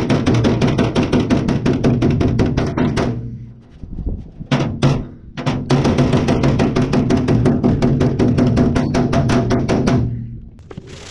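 Rapid hammer blows on the sheet steel of a rusty steel cabinet, knocking a bent bumper back into shape, with the hollow cabinet ringing under each strike. The hammering pauses briefly about three seconds in, then runs on steadily and stops about ten seconds in.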